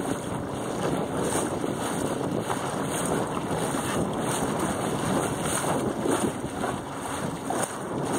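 Wind noise buffeting the microphone of a camera mounted on the mast of a Bauer 10 sailing dinghy under sail, over the wash of choppy water around the boat. The noise is steady, swelling and easing slightly with the gusts.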